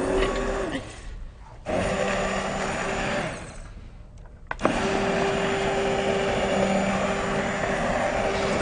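Electric blender running through hot butternut squash soup. It runs briefly, stops, runs again and stops again, then from about five seconds in runs steadily.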